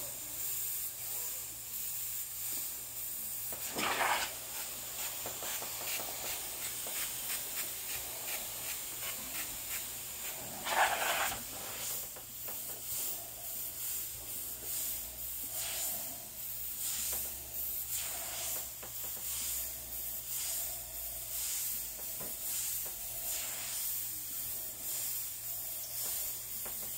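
Airbrush spraying paint in many short hissing bursts as the trigger is worked in quick strokes, with two louder, longer rushes of air about four seconds in and again about eleven seconds in.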